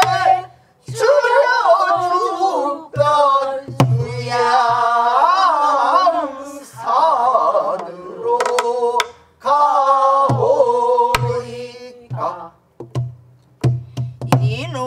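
Voices singing a pansori passage in long, wavering held phrases, accompanied by a buk barrel drum. The drum gives low thuds and a few sharp stick clicks on its wooden shell.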